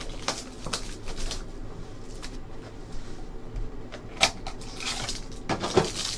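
Hands opening a trading card box and its packs: cardboard and plastic wrapping crinkling and tearing in short bursts, with louder crackles about four seconds in and near the end.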